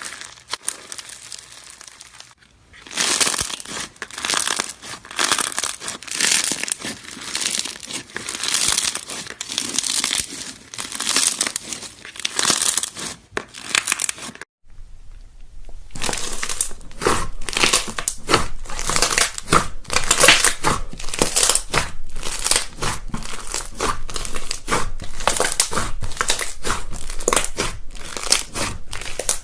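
Slime being squeezed, stretched and pressed in the hands, making dense crackling, popping and sticky tearing sounds. Partway through the sound breaks off briefly, then resumes with many sharp crackles and pops.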